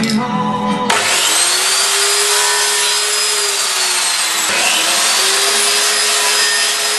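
Electric mitre saw running and cutting a thin slice off a mahogany strip: a loud, steady whine whose pitch rises and falls twice. Background guitar music ends about a second in.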